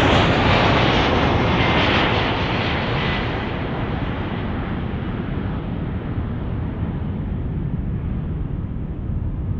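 Delta Boeing 767's twin turbofan engines on final approach with gear down, passing close overhead and then moving away. The bright jet rush with a faint whine dulls after about three and a half seconds, leaving a lower, gradually fading rumble.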